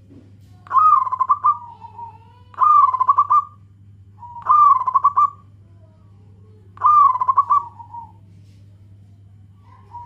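Zebra dove (perkutut) singing its rolling coo: four loud phrases, each about a second of rapid stuttering notes, a couple of seconds apart, then a fainter phrase at the end. A faint steady low hum lies underneath.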